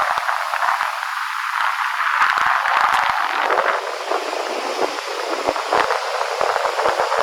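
Ocean surf washing ashore, a steady rushing noise with faint crackles through it.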